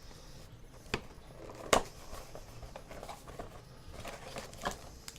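Sharp clicks and taps from a trading-card box and its packaging being handled and opened, two louder ones about a second apart, then a few fainter ones.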